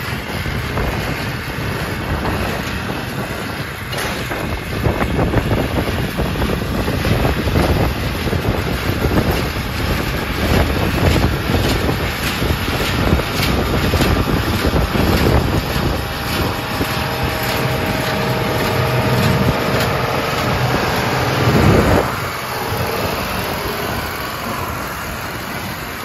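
International Harvester 956XL tractor's six-cylinder diesel engine running steadily under load as it pulls a New Holland small square baler through hay, with wind buffeting the microphone.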